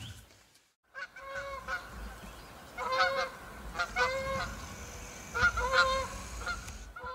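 Geese honking repeatedly as they fly over, a series of short calls starting about a second in.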